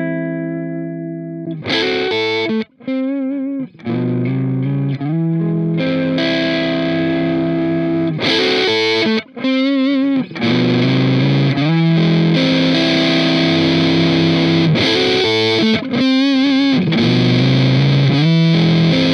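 Electric guitar played through a Boss DS-2 Turbo Distortion pedal. A held chord fades away, then from about two seconds in distorted chords and riffs follow, broken by short stops, with several held notes wavering in vibrato.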